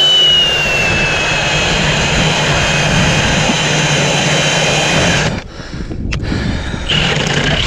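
Battery-powered ice auger boring through lake ice: a steady motor whine that slowly drops in pitch as the auger bites in. It stops about five seconds in and starts up again near the end, which the owner puts down to a cold battery.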